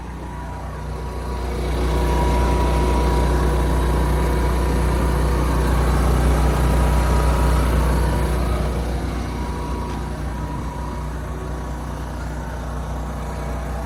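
Mercedes Sprinter 3.0-litre V6 turbo diesel idling steadily, along with the motorhome's Onan propane generator running: a constant low hum with a faint whine on top. It grows louder about two seconds in and eases off again after about eight seconds.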